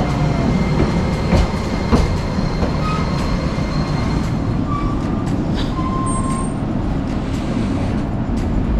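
Tram running on rails: a steady rolling noise with scattered clicks, and a few short wheel squeals about halfway through.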